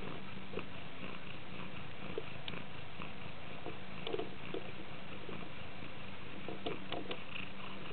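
Birman mother cat purring steadily while nursing her newborn kittens, with scattered short soft clicks and squeaks, more of them near the end.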